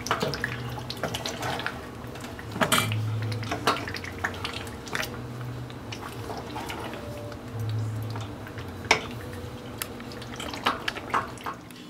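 A wooden spoon stirring thick tomato-and-meat stew in an aluminium pot: irregular knocks of the spoon against the pot with the wet slosh of the sauce.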